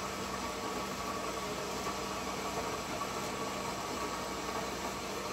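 A fan running with a steady hum and hiss.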